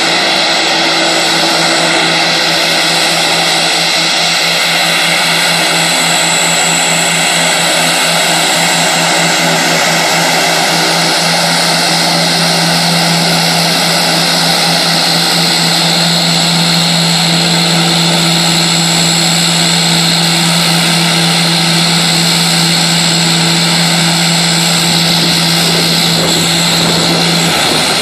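Mitsubishi MU-2J twin turboprop taxiing, its two Garrett TPE331 engines running steadily and loudly: a propeller drone with a thin, high turbine whine over it. Near the end the drone steps up slightly in pitch.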